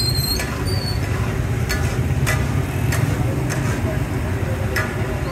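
Metal spatulas scraping and clinking against a large steel cooking pot as food is stirred, a ringing clink every second or so, over a steady low rumble of the street.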